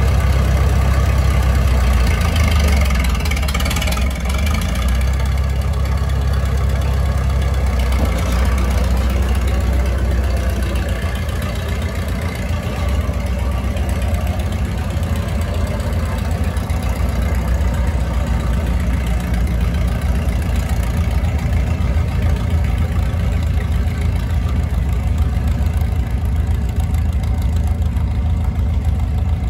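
International Harvester crawler dozer's diesel engine running loudly as the machine is driven off, its note shifting about eight seconds in.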